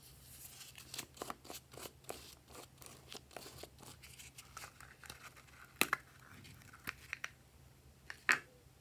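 Plastic packaging crinkling and crackling as a plastic bottle's caps are pulled off, followed by a few sharp plastic clicks, the loudest near the end as the lid comes free.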